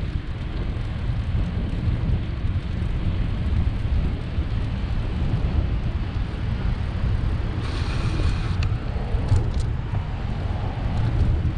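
Wind buffeting the microphone of a bicycle-mounted camera while riding, a steady low rumble. About eight seconds in, a brief hiss with a faint whistle-like tone lasts about a second, followed by two short ticks.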